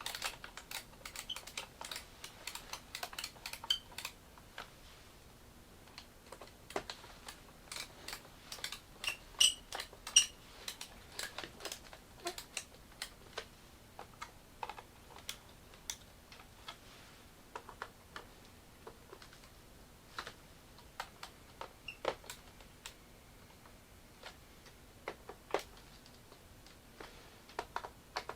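Irregular small clicks, taps and light knocks of hard plastic parts being handled and fitted by hand, as when working on a Roomba 560's cleaning head module. The clicks come thickest in the first half, with a couple of sharper knocks about ten seconds in.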